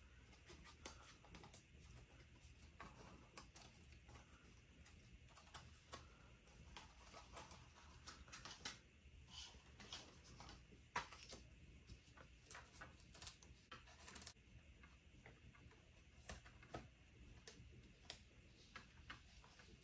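Near silence, with faint scattered clicks and rustles of paper and tape being handled by hand.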